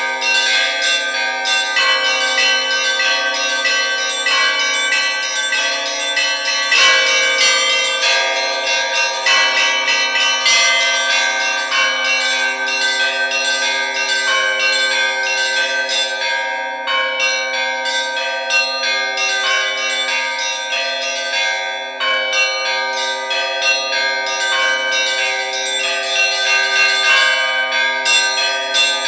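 Russian church bells rung by a bell-ringer in a continuous evening peal, heard close up in the belfry: small bells struck in rapid patterns over the steady ringing of larger bells. The small bells break off briefly twice in the middle.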